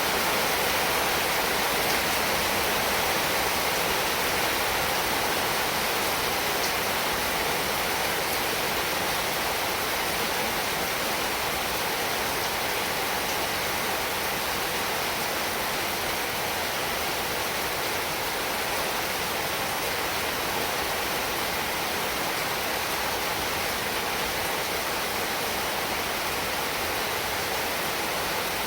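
Heavy rain falling in a steady downpour, an even hiss with no single drops standing out.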